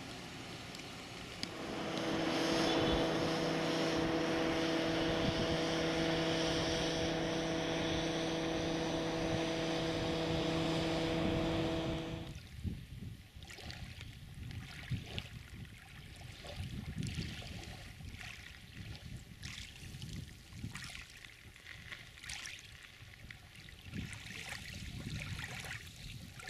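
A steady engine hum at a constant pitch, which cuts off abruptly about twelve seconds in. After it, small ripples lap and trickle over a pebble shore in a quiet, irregular patter.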